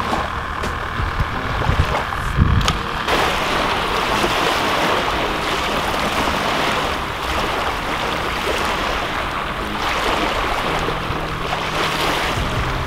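Wind buffeting the microphone over small waves lapping at the shoreline, with a heavier gust about two and a half seconds in.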